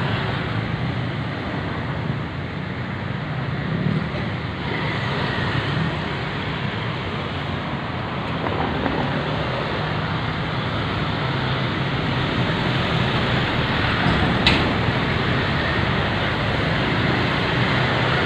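Steady traffic noise from vehicles on a busy road, an even rushing hum with no break. A single short click about fourteen seconds in.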